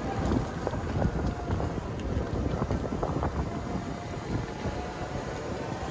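Wind buffeting the microphone from a ride in a moving open golf cart, with the cart's low running noise underneath; a steady, rough rush that rises and falls in loudness.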